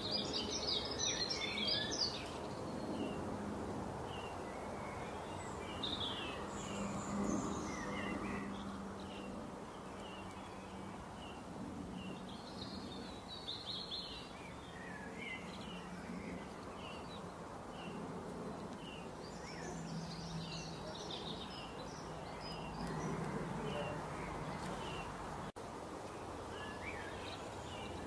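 Wild birds singing, with many short chirps and calls scattered throughout, over a low buzzing hum that comes and goes.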